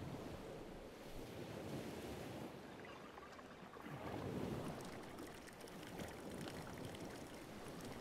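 Faint ocean surf washing on a beach, a steady rush with one wave swelling up about four seconds in.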